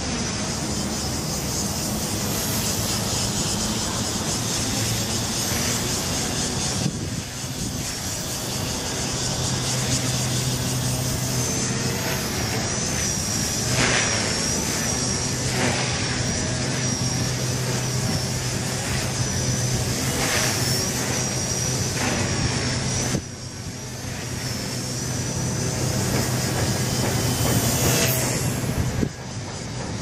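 Walkera V120D02S micro RC helicopter in flight, its electric motor and rotors giving a high whine that wavers up and down in pitch as the throttle and rotor load change during aerobatics, over a steady hiss and low hum. The sound dips briefly a few times.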